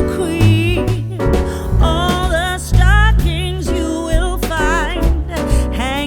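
Background music: a song with a pulsing bass line and a lead melody that wavers and bends in pitch.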